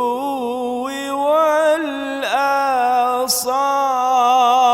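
A man reciting the Quran in melodic tajwid style (tilawa), holding the word "bi-l-ghuduwwi" in long ornamented notes that waver up and down, with a short break a little past halfway.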